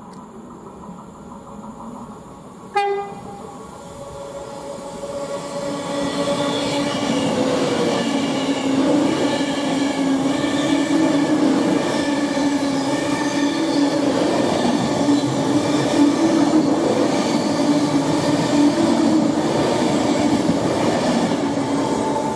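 A train horn gives a brief sharp toot about three seconds in. A train then approaches and passes at speed, building over a few seconds to a loud steady rush with a droning hum.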